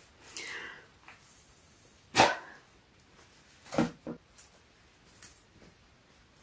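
Short puffs of breath blown through a running gaiter's fabric to test how breathable it is: a sharp puff about two seconds in, then two quicker ones just under two seconds later.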